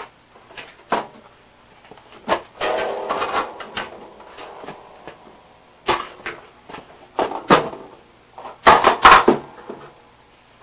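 Knocks, clicks and rattling from hands handling a pendulum oscillator while its springs are swapped, with a longer rattle about two and a half seconds in and a cluster of loud knocks near the end.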